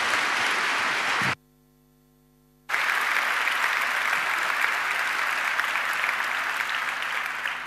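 Large conference audience applauding. About a second in the applause drops out abruptly for just over a second, leaving only a faint steady hum, then comes back and dies away near the end.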